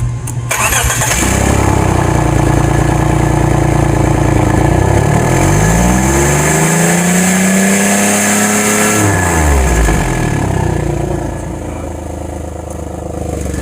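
The 3.0-litre flat-six of a 2006 Subaru Tribeca runs loud with an oxygen sensor out of the exhaust. About five seconds in it is revved up once, held briefly, then falls back to idle near the ten-second mark. This is an exhaust backpressure test, which the mechanic puts down to a restricted rear catalytic converter.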